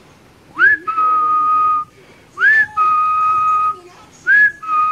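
A person whistling at a beagle puppy: three whistles, each a quick upward swoop followed by a steady held note about a second long, repeated at an even pace.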